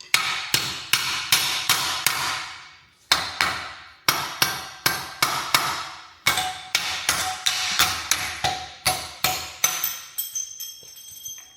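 Hammer blows on metal, about two to three a second, each with a short metallic ring. There is a brief pause about three seconds in, and near the end the blows grow fainter while a metallic ringing lingers.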